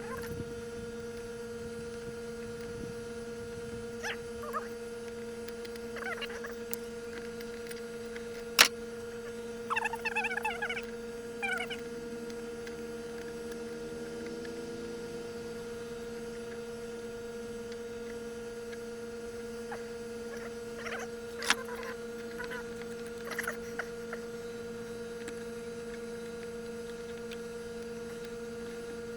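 A steady electrical hum, with a few scattered clicks and knocks. There is a brief squeaky, wavering sound a third of the way in.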